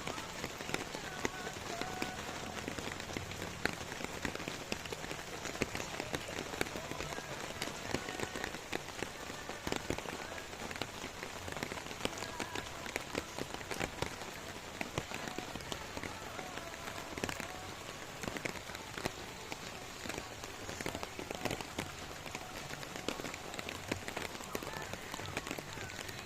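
Steady rain falling, with many individual drops tapping sharply on a surface close by.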